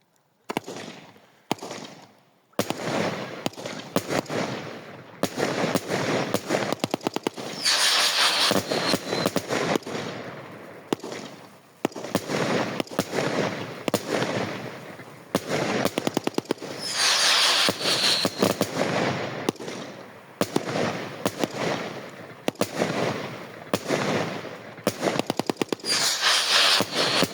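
Fireworks firing in rapid succession: a dense run of shots and crackling that starts about half a second in, with louder bursts of crackle three times, roughly every nine seconds.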